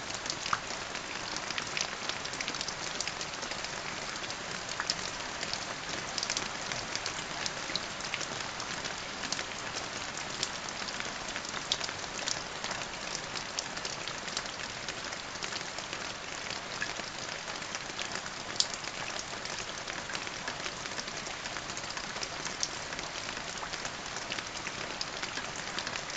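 Steady rain falling on a surface: a constant hiss with many scattered, sharper drop ticks.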